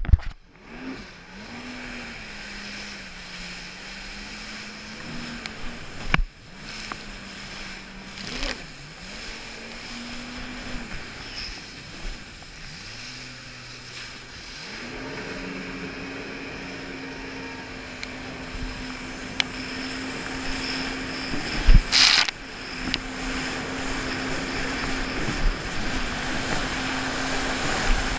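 Jet ski engine running under way, its pitch rising and falling with the throttle and dropping off a few times before settling into a steady run, over rushing water and wind. A few sharp knocks cut through, the loudest about two-thirds of the way in.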